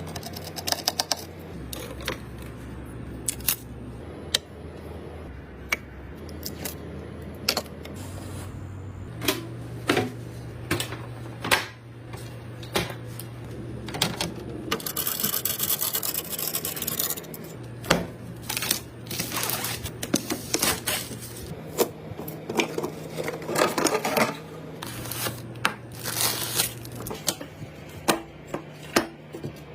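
Irregular clicks, taps and scrapes of hard computer parts and cables being handled and fitted during a PC setup, with a few longer scraping stretches, over soft background music.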